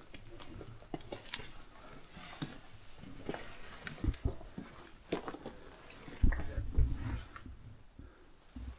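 People scrambling over loose slate underground: scattered clicks and knocks of boots and shifting rock, with heavier low thumps about six to seven seconds in.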